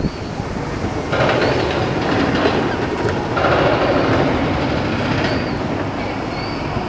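Outdoor city ambience with wind buffeting the microphone as a constant low rumble, two stretches of louder rushing noise of about two seconds each, and a few faint short high chirps.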